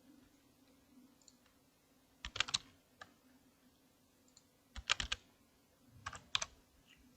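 Light clicks in four short groups of a few clicks each, like keys or small tool parts being tapped, with near quiet between.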